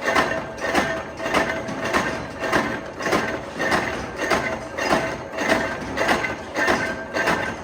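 Metalworking machine in a hex-nut factory striking in a steady rhythm, about one and a half strokes a second, each stroke a sharp clank with a metallic ring.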